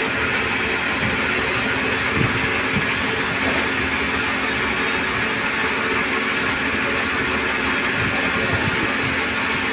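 CNC lathe running during a shaft-turning job: a steady machine hum with an even hiss over it.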